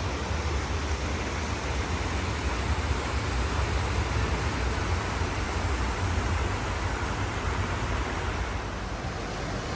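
Steady rush of falling water from a waterfall, an even hiss with a low rumble underneath.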